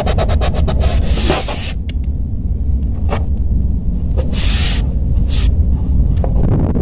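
A hand brushing and rubbing across a sheet of copy paper on a desk, then a pencil touching down and sketching, heard close up. It begins with a rapid run of light ticks, and short rubbing swishes come about a second in and again past the middle, over a steady low rumble.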